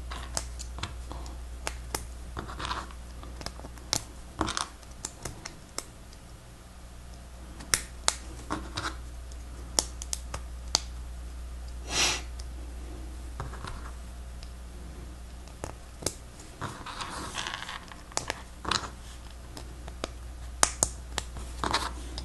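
Plastic Lego Technic pieces clicking and clattering as they are handled and snapped together, with short rustles of rummaging through loose parts. A steady low hum runs underneath.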